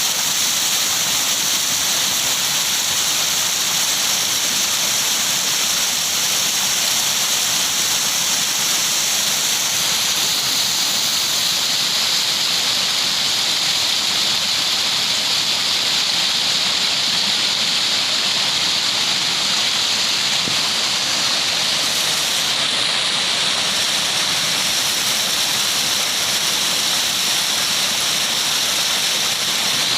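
Water rushing steadily, with no breaks or separate splashes.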